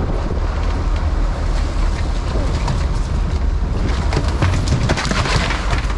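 Boat engine running with wind buffeting the microphone, a steady low rumble. About four seconds in comes a short flurry of knocks and clatter.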